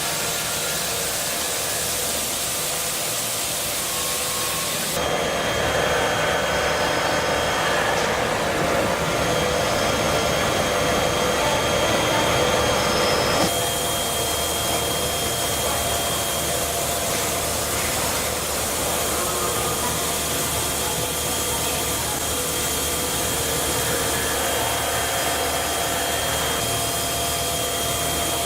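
CNC machine running and cutting metal: a steady mechanical noise with a few high steady whines from the spindle. The sound shifts abruptly about five seconds in and again about thirteen seconds in, getting a little louder in between.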